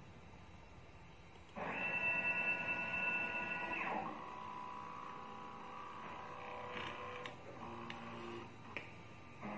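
Stepper motors of a CNC plasma table whining as they drive the torch head during a test run, starting about one and a half seconds in. About four seconds in, the whine steps down to a set of lower steady tones that change pitch with each move, and a couple of short clicks come near the end.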